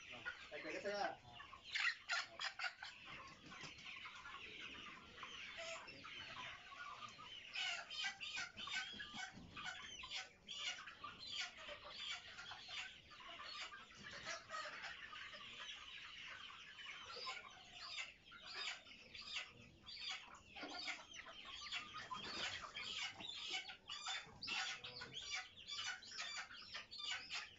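A flock of tiger chickens clucking and squawking without a break, with many short, sharp calls overlapping one another as birds are caught and held up by their legs for weighing.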